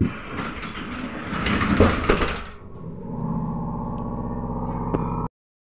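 Inside a Trolza-5275.03 Optima trolleybus: a loud rushing hiss for about two and a half seconds, then a steady electric hum of several tones from about three seconds in, which cuts off suddenly near the end.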